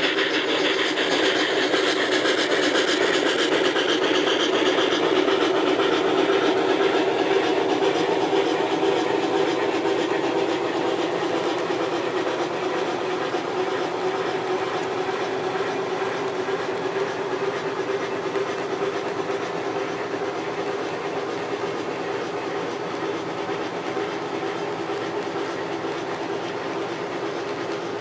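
A model N&W J 4-8-4 steam locomotive and its passenger cars running past on the layout's track: a steady running noise with rapid clicking from the wheels. A higher hiss fades over the first ten seconds as the locomotive moves on and the cars follow.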